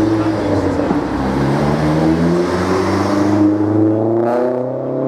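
V16 diesel engine of a British mainline diesel-electric locomotive working under power. Its note holds steady at first, then climbs steadily from about two and a half seconds in as the engine revs up.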